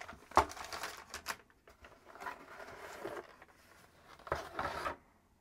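Cardboard box packaging being handled: a knock about half a second in and a few light taps, then scraping and rustling as the inner cardboard tray is lifted out of the box.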